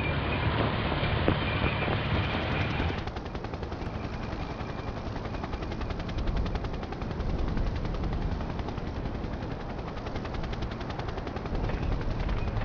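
A low rumble with a steady high tone, then from about three seconds in a long run of rapid, evenly spaced sharp reports: sustained automatic gunfire.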